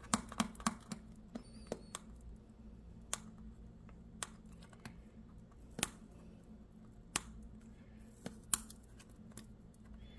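Fingers picking at the tape that seals a small cardboard card-game box: a scatter of light clicks and ticks, quick and close together in the first couple of seconds, then single ones a second or more apart.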